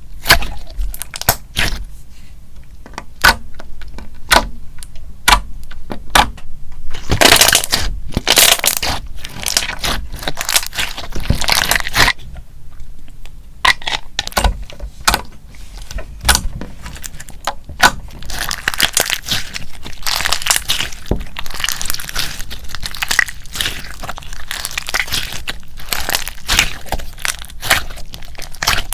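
Clear slime being pressed and poked with fingers: a run of sharp sticky clicks and pops, which thicken into dense crackling in two longer stretches.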